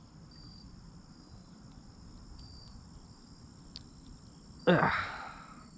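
Steady chorus of crickets and other insects trilling, with short high chirps scattered through. About three-quarters of the way in, a brief louder vocal sound falls in pitch.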